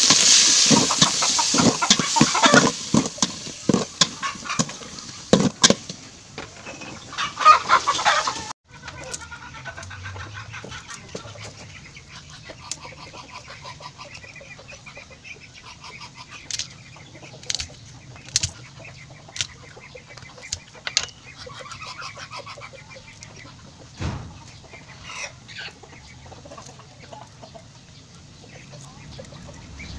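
Pork sizzling in an aluminium pot, with sharp clicks and scrapes of a metal spoon stirring it, until an abrupt cut about eight and a half seconds in. After that, quieter clicks of hands and a knife on a plastic cutting board as garlic is peeled, with chickens clucking in the background.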